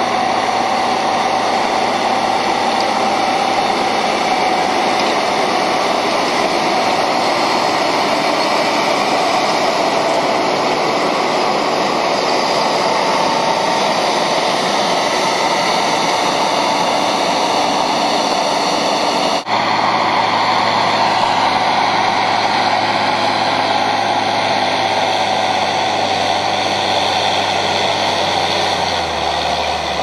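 John Deere 6910 tractor's six-cylinder diesel engine running steadily under field load. About two-thirds of the way through the sound breaks off for an instant and picks up again as another tractor engine running at a slightly different steady pitch.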